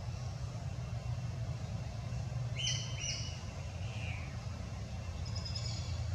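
Outdoor ambience with a steady low rumble underneath. Two short, high, even-pitched calls come a little past halfway, then a fainter one, with faint high calls near the end.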